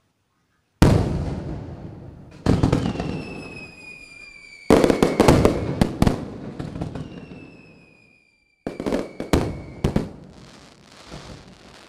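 Fireworks going off: a loud bang about a second in, then three more bursts of bangs and crackling, each dying away over a second or two. A long, slowly falling whistle sounds twice between the bursts.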